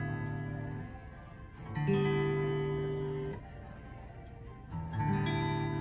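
Old Epiphone acoustic guitar being strummed: a chord rings and fades, then it is strummed again about two seconds in and again near the end, each chord left to ring out. It is pretty much in tune, except for one string that is out of tune.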